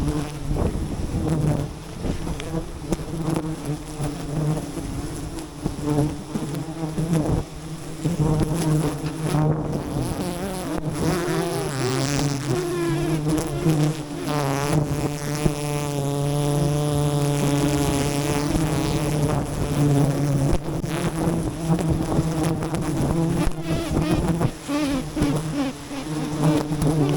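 Wild honeybees buzzing in large numbers around their hive, a steady dense hum, with one bee buzzing close and louder for a few seconds in the middle.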